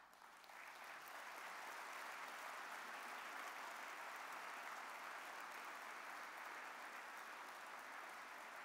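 Large seated audience applauding, building up over the first second and then holding steady.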